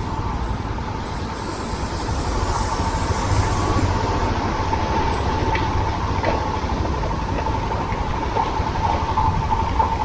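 Royal Enfield Himalayan's single-cylinder engine running at low speed as the bike crawls over a rough gravel road, with a steady high hum over the rumble.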